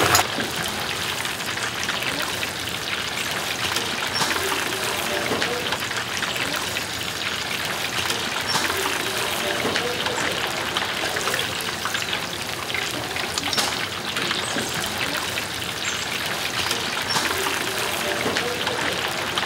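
Oil sizzling and crackling steadily in a deep fryer, a continuous hiss dotted with small pops.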